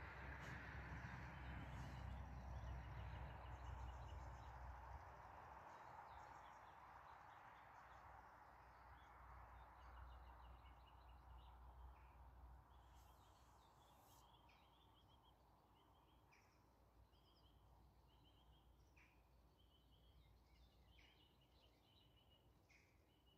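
Faint waterside ambience: small birds chirping in short repeated high notes, more often in the second half, over a low distant rumble and hiss that slowly fade away.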